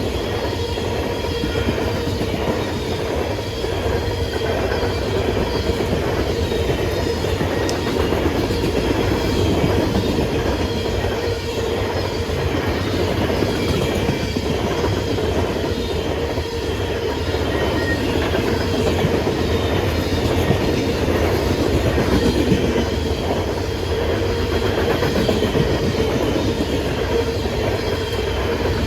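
Freight train cars rolling past, a steady, unbroken noise of steel wheels on rail with faint high squealing tones over it.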